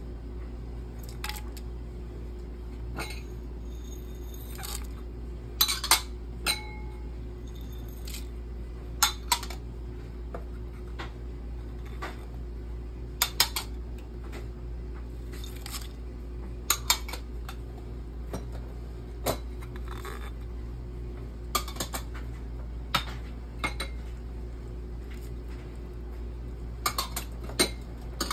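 Scattered sharp metallic clinks and knocks against a stainless steel cooking pot, coming singly or in quick pairs every few seconds, some ringing briefly, while spices are added to the pot. A steady low hum runs underneath.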